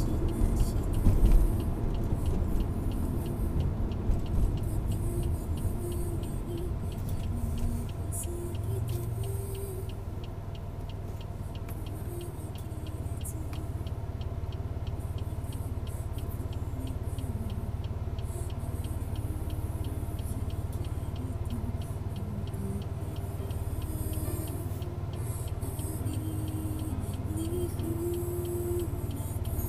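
Car noise heard from inside the cabin: tyre and road rumble as the car slows from highway speed, with a couple of knocks in the first few seconds, settling into a steady low hum of the car stopped and idling at a traffic light.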